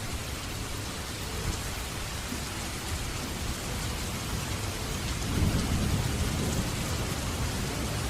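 Steady rain hissing, with a low rumble of thunder building about five seconds in.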